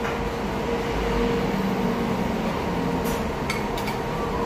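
Restaurant room tone with a steady hum, and a few light clinks of a fork against a plate about three seconds in.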